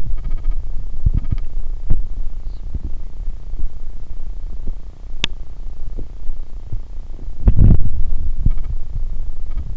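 Low humming and throbbing picked up by a Logitech webcam's built-in microphone, loud and swelling irregularly, with a sharp click about five seconds in and a stronger surge about three quarters of the way through. It is an unexplained hum of the webcam's mic that someone suggested curing by grounding it.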